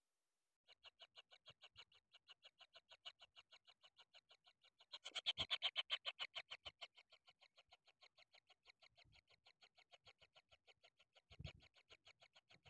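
Kingfisher nestlings calling in their nest burrow: a steady, rapid train of short, high calls, about four a second, swelling louder and quicker about five seconds in, with a couple of faint low thumps.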